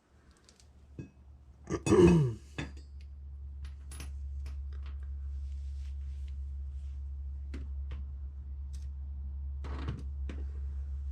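Metal clinking and knocking as an ATV wheel hub is taken off its axle, with scattered sharp clicks throughout. About two seconds in there is a louder clatter and a short grunt that falls in pitch. A steady low hum runs underneath.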